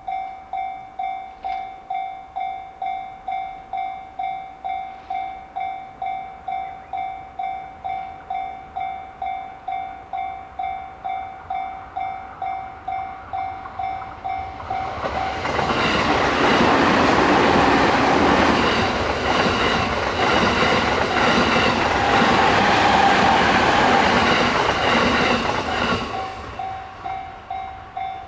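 Japanese level-crossing warning bell ringing steadily, about two strikes a second. About halfway through, a train runs over the crossing with loud wheel-on-rail noise and clatter over the rail joints that drowns the bell for about ten seconds; the bell is heard again near the end.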